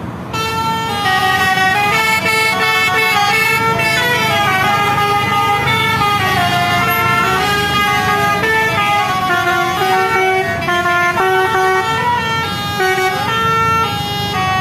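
Lorry's basuri musical air horn playing a tune: several horn tones sound together and step up and down in pitch. It starts a moment in and carries on without a break.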